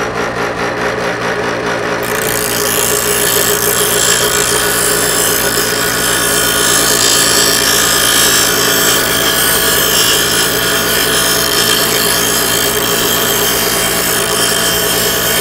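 Black & Decker bench grinder running steadily, with the metal sleeve of a new motor mount bushing pressed to the wheel from about two seconds in, adding a steady grinding hiss over the motor's hum. The edge is being ground so the bushing gets a straight start when it is pressed in.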